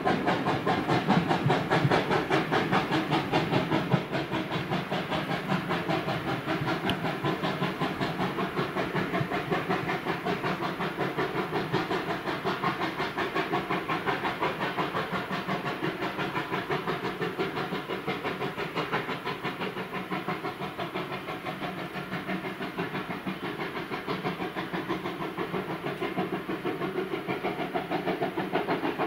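Level crossing warning alarm sounding, a rapid, even warble that keeps going at a steady level after the train has cleared the crossing.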